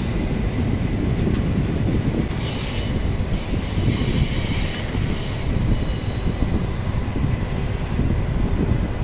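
A CRH high-speed electric multiple-unit train rolls past with a steady rumble from its wheels on the track. A high-pitched metallic squeal from the running gear comes in about two and a half seconds in and fades out about four seconds later.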